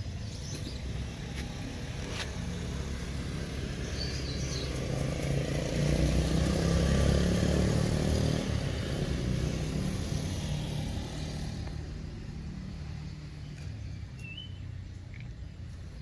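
A motor vehicle passing by: engine and road noise swell from about four seconds in, are loudest a couple of seconds later, and fade away by about twelve seconds.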